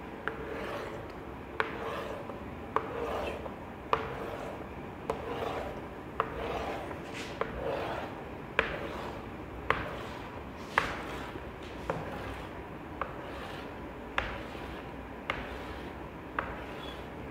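Chalk drawing a row of vertical lines on a blackboard, about one stroke a second. Each stroke is a sharp tap of the chalk on the board and a scratchy scrape.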